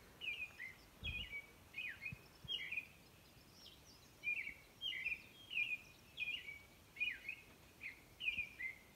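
A songbird's dawn song: short, slurred chirping notes in quick little phrases with brief pauses between them, over a faint steady background hiss.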